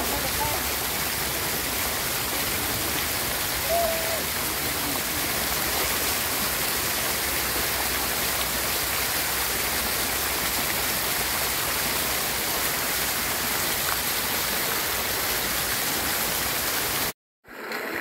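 Many jets of a dancing water fountain spraying and splashing back into the pool, a steady rush of falling water. It cuts out for a moment about a second before the end.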